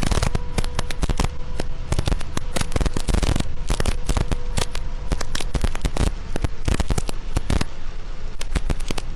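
Heavy rain pelting a vehicle's windshield while driving on a motorway: a dense, irregular crackle of drops striking the glass, many hits a second.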